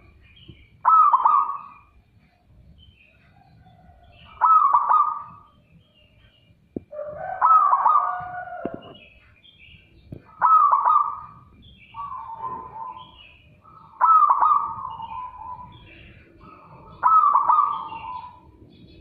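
Caged zebra dove (perkutut) singing its loud cooing song, seven phrases of about a second each, spaced two to three seconds apart.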